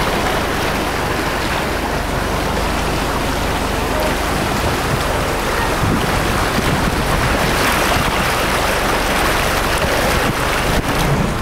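Vehicle moving through floodwater: a steady rushing wash of water noise with a low engine hum underneath.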